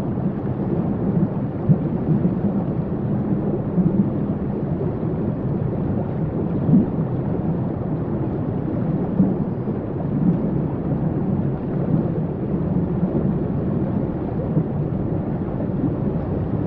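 Waterfall: a steady, low rushing roar of falling water that does not let up.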